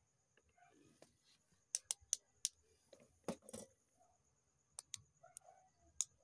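Small plastic toy-brick pieces clicking and snapping together as a minifigure is assembled by hand: a string of sharp clicks, with a duller knock about three seconds in.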